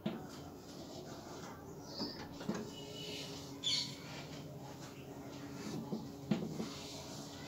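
Chalk drawing on a blackboard: scratching strokes with a few sharp taps as the chalk meets the board, and a short high squeak a little past the middle.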